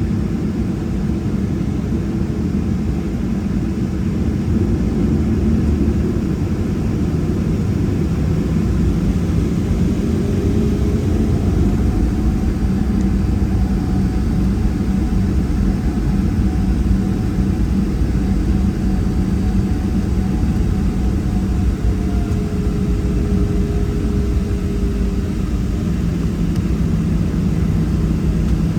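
Boeing 737-700's CFM56-7B jet engines running at low taxi thrust, heard from inside the cabin as a steady low drone with a faint hum. It gets slightly louder about six seconds in as thrust is added to start the taxi.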